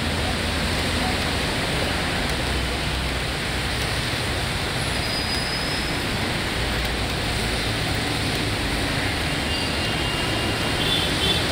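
Steady noise of dense road traffic on a wet road: tyres hissing through water over the low rumble of running engines, with faint brief high squeals now and then.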